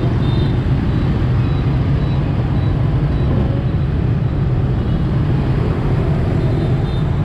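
Steady street traffic, mostly motorbikes and scooters running past, with a continuous low rumble.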